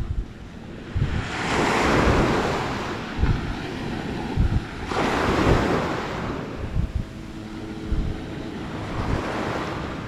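Small waves breaking and washing up the sand at the water's edge, swelling about every four seconds, with wind buffeting the microphone.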